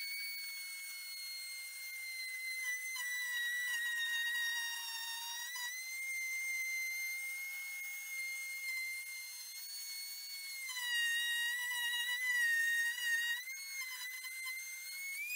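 Handheld router with a 3 mm straight bit cutting through a melamine board along an oval template. It gives a steady high whine whose pitch sags slightly as the bit takes load mid-cut and rises again near the end.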